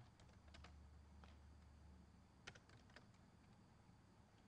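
Faint computer keyboard keystrokes: a few sparse key taps, the loudest about two and a half seconds in, over a low steady hum.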